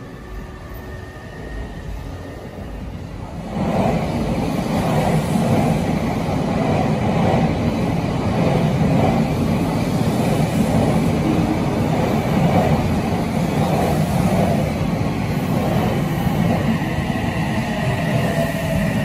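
Odakyu Line electric commuter train pulling in alongside the platform: a loud rumble of wheels on rails starts about three and a half seconds in, and near the end a falling electric motor whine comes in as the train brakes.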